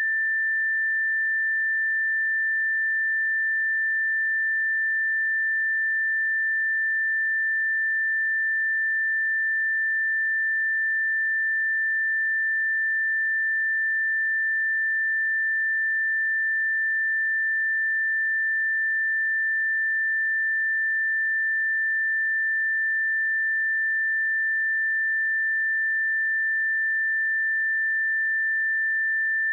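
A pure 1777 Hz sine-wave test tone, one steady high pitch held at constant level without a break.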